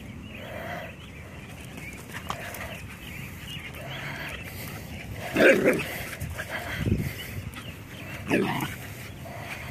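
Dogs growling and barking as they play-fight, with three louder short outbursts in the second half, the loudest about five and a half seconds in.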